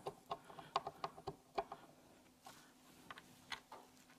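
Light, irregular clicks and ticks of a Phillips screwdriver and small screws being worked by hand into a telescope's base board, thickest in the first second and a half, then sparser.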